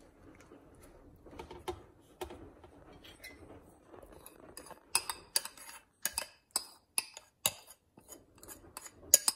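Metal spoon scraping and clinking against the inside of a ceramic bowl, scraping out the last of the melted butter: faint scraping at first, then a run of sharp clinks about two a second through the second half, the loudest just before the end.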